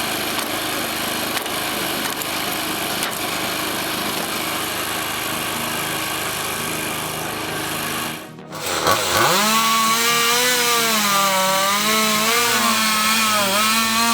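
Steady machine noise. After a sudden cut about eight seconds in, a small engine revs up quickly and holds at high speed with a wavering pitch, as when cutting wood.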